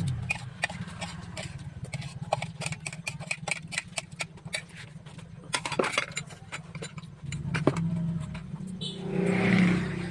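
Scattered clicks and clinks of cutlery and dishes during a meal, over a steady engine hum from a motor vehicle that grows louder near the end as it passes.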